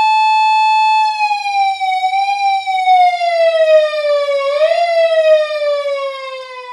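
Japanese police car siren wailing: one long tone held for about a second, then sliding slowly down in pitch, with a brief upward bump a little past halfway, fading out near the end.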